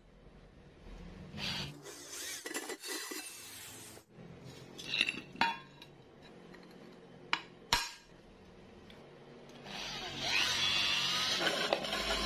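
A few sharp metal knocks and clinks as steel parts are handled, then from about ten seconds in a corded electric drill with a hole saw runs and cuts into a steel disc, its pitch wavering as it bites.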